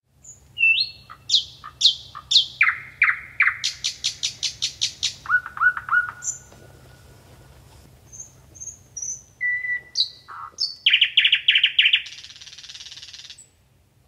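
Nightingale singing its complex song: a varied run of clear whistles and fast repeated notes, a lull about halfway, then a held whistle, a rapid trill and a buzzy rattle near the end.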